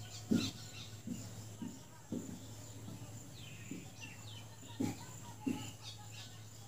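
Marker writing on a whiteboard: faint, irregular taps of the marker tip against the board and a few short squeaky strokes, over a steady low hum.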